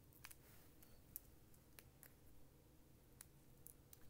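A handful of faint, scattered clicks from fingernails picking at and peeling the release-paper backing off small adhesive foam squares.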